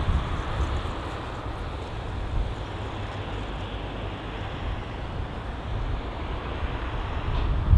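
Steady rushing noise of jet aircraft engines at an airport, with wind gusting on the microphone.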